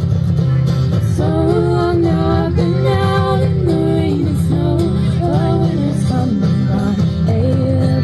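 Acoustic bluegrass string band playing live: acoustic guitar, banjo, fiddle and upright bass. A bending, sliding melody line comes in about a second in over the steady accompaniment.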